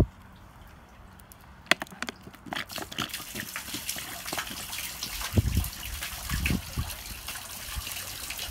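Plastic soda bottle with Mentos dropped in, foaming soda spraying out of its open neck in a steady fizzing hiss that starts about three seconds in, after a few sharp clicks. There is a low thump about five seconds in.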